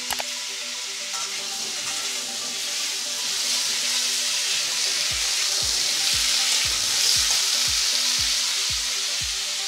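Peeled potatoes sizzling in hot oil in a metal kadai while a spatula stirs them. The sizzle grows louder through the middle, with a couple of sharp clicks right at the start. Background music with a low beat comes in about halfway through.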